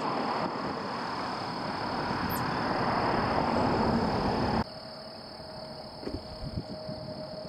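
Aircraft engine noise growing louder, cut off suddenly about four and a half seconds in; after that, quieter airport ambience with a faint steady whine. A steady high tone runs underneath throughout.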